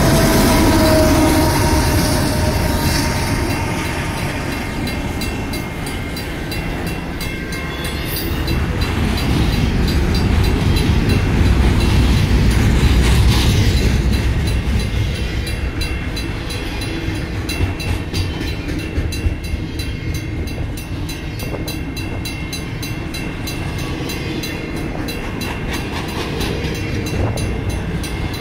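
Union Pacific double-stack intermodal freight train passing close by: a diesel locomotive goes by at the start, then the loaded well cars rumble and clack over the rails. The grade crossing's signal bells ring throughout.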